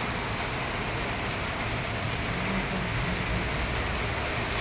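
Rain falling steadily: an even hiss with scattered sharp ticks of single drops.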